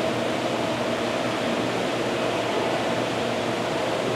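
Steady hum and rush of a fish store's running equipment, the pumps, flowing water and ventilation behind rows of plumbed aquarium tanks, with a faint steady tone.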